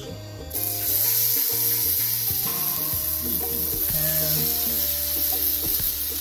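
Seasoned beef short ribs laid into hot vegetable oil in a frying pan, sizzling steadily as they sear; the sizzle starts suddenly about half a second in as the first pieces hit the pan. Background music plays underneath.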